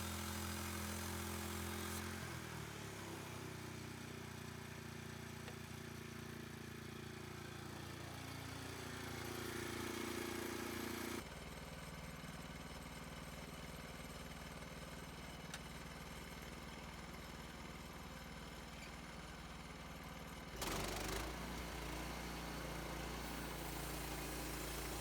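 An engine running steadily. Its pitch drops about two seconds in, then climbs slowly, and the sound changes abruptly twice, near the middle and near the end.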